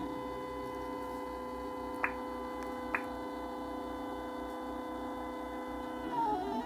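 PrintrBot 3D printer's stepper motors whining at a steady pitch as the print head makes a long straight run, the pitch dipping and sliding near the end as the head changes direction. Two short clicks about two and three seconds in.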